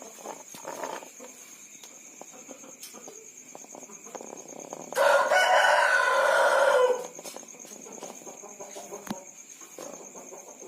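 A rooster crows once, a call of about two seconds near the middle that falls away at its end. Before and after it come faint rasping breaths from a chicken snoring very loudly with a respiratory disorder (ngorok).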